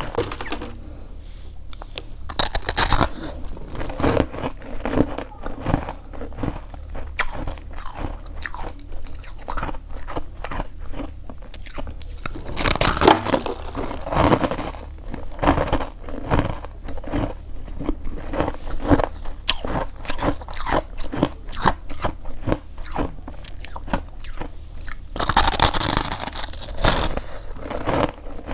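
Freezer frost being bitten and chewed close to the microphone: a dense, continuous run of crisp crunches, with several louder bites scattered through and a longer loud burst near the end.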